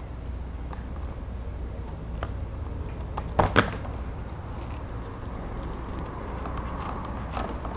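Small handling sounds as a foam wing and aileron are trimmed of PVC hinge tape and turned on a cutting mat. A few faint ticks, then two short clicks close together about three and a half seconds in, over a steady low room hum and hiss.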